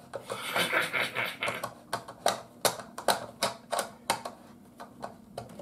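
Fitting a fiberboard back panel to a small wood radio with small screws and a screwdriver: a run of sharp clicks, about two or three a second, with a scratchy scraping stretch early on.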